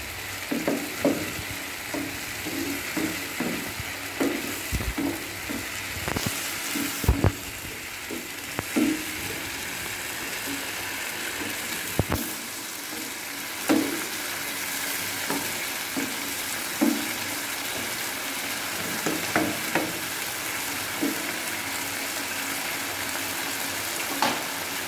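Vegetables in masala sizzling in a nonstick kadai, with a wooden spatula scraping and knocking against the pan as they are stirred. The stirring strokes come often in the first several seconds and only now and then after that, over a steady sizzle.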